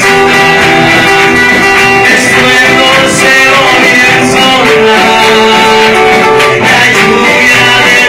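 A live worship band playing loudly, with guitars and a singer.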